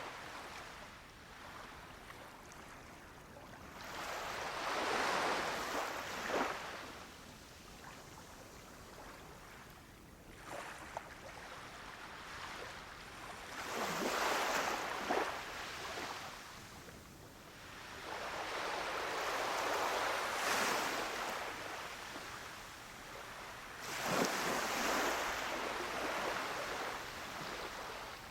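Small waves breaking and washing up a beach, one after another. There are four main surges of surf hiss, each swelling for a few seconds and then fading.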